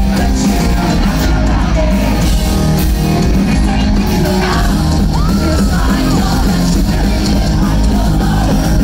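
Pop-punk band playing live at full volume: electric guitars, bass guitar and drums, with singing and yells over the music.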